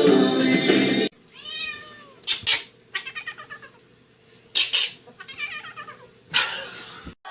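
A cat meowing and yowling over and over, its calls bending up and down in pitch, with a few short, louder, harsh cries among them.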